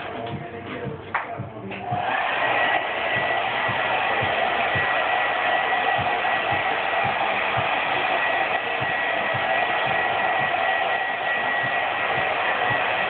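A few handling knocks, then a handheld hot-air blower is switched on about two seconds in and runs steadily, a loud hiss with a thin high whine, as it heats freshly sprayed smoke tint on a taillight lens.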